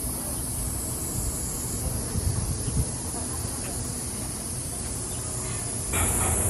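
A steady, high-pitched chorus of insects chirring in the surrounding forest, with a low rumble underneath. The chorus grows louder near the end.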